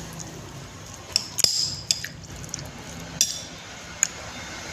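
Tableware clinking during a meal: about six sharp clinks, one ringing briefly, with a little liquid sound.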